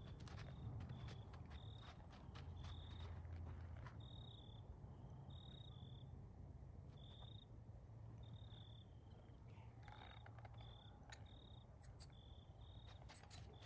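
Faint cricket chirping: short, high, repeated chirps about once or twice a second over a low steady rumble.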